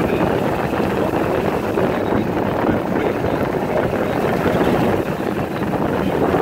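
Steady ride noise of a golf cart driving along a paved road, a constant rumble mixed with wind buffeting the microphone.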